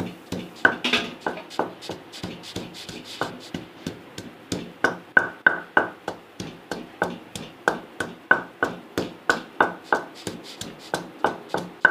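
Pestle pounding peeled garlic cloves in a mortar to crush them into a paste: a long run of sharp strikes, about two to three a second, each with a short ring.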